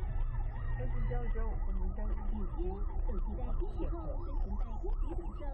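A siren warbling quickly up and down, several sweeps a second, over steady low road and engine rumble.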